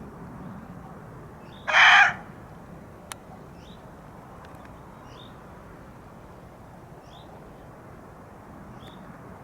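A female muntjac deer gives a single loud, short bark about two seconds in, an alarm call at a person she has spotted moving nearby.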